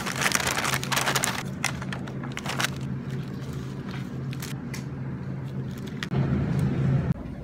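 Paper takeout bag and wrapping paper rustling and crinkling as food is pulled out, densest in the first few seconds, then scattered crackles. A steady low hum sits underneath, louder for about a second near the end.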